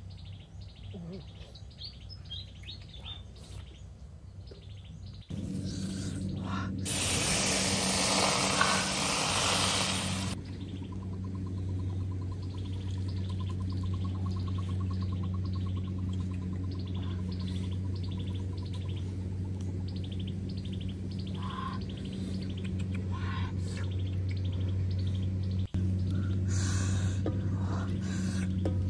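Birds chirping again and again. About five seconds in, a steady low hum comes in and continues, and shortly after a loud hiss runs for about three seconds.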